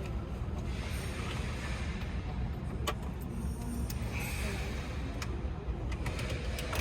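Steady low rumble of background noise with a few sharp clicks, one about three seconds in and another about five seconds in.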